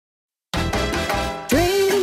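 Silence, then about half a second in an upbeat theme song starts with a steady beat; a singing voice comes in about a second and a half in.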